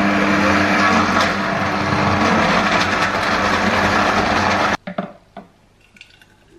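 Countertop blender running at full power, blending a smoothie with ice cubes: a loud, steady whirring with a low motor hum. It cuts off suddenly about three-quarters of the way through, followed by a few light knocks.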